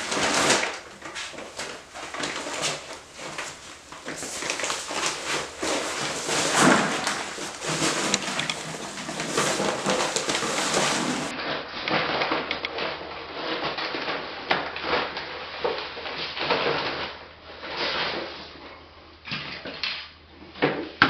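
Rustling of a paper sack of thinset mortar and dry powder pouring into a plastic bucket, with scraping and knocks. A few separate knocks near the end.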